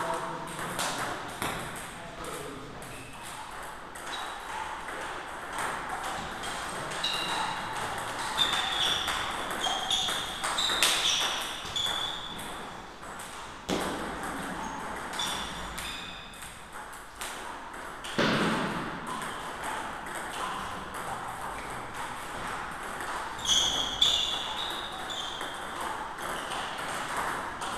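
Table tennis balls clicking off the table tops and rackets in irregular runs of short, sharp hits, from this match and a neighbouring table, with people talking in the background.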